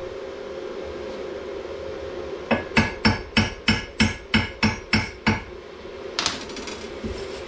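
Chipping hammer knocking slag off a freshly laid stick-electrode weld bead on steel: about ten sharp, even strikes, roughly three a second, then one harder scraping blow.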